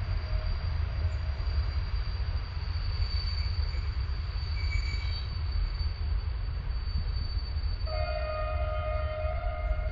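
Train rolling along the tracks with a steady low rumble. About eight seconds in, a steady ringing tone with overtones rises over it and holds for the last two seconds.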